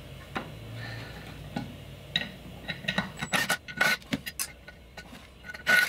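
Cordless impact driver whirring briefly as it backs out a screw, then irregular light metallic clicks and taps of screws and the inverter's aluminium parts being handled.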